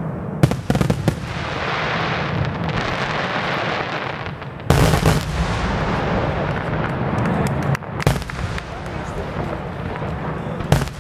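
Aerial firework shells bursting in a display: a quick cluster of sharp bangs just after the start, a heavy bang about five seconds in, and more near eight seconds and near the end, with continuous noise between them.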